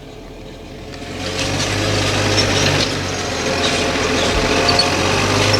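Tractor engine running steadily under ploughing load, growing louder over the first two seconds as it draws near, then holding level.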